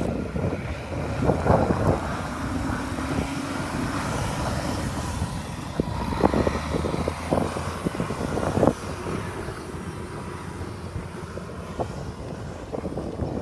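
Astra HD9 truck tractor's diesel engine running as the truck pulls away, with wind buffeting the microphone in irregular thumps.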